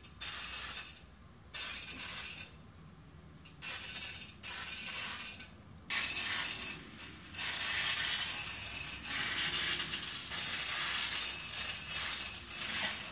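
Vaper refillable non-aerosol spray can, hand-pressurised through its Schrader valve, spraying brake cleaner onto a concrete floor: a hiss in a few short bursts, then one long spray from about six seconds in.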